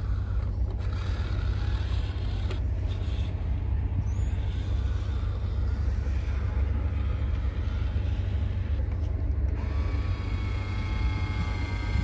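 Remote-control construction truck running: a steady low engine-like rumble, joined about ten seconds in by a rising whine that settles into a steady tone.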